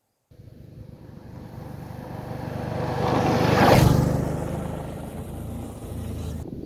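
A motor vehicle passing by: its engine sound swells to a peak about halfway, then fades away, and cuts off suddenly near the end.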